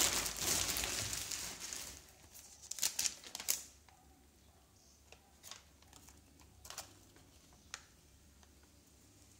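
Packaging rustling and crinkling as it is handled, fairly loud for the first two seconds and then fading. A cluster of sharp rustles comes about three seconds in, followed by a few faint clicks and taps.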